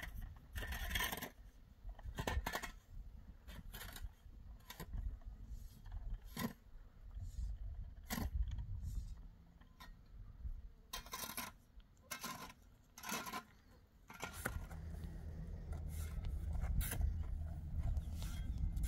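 Scattered scrapes and clinks of a long-handled hand tool working rock and gravel. About fourteen seconds in, a steady low rumble joins them.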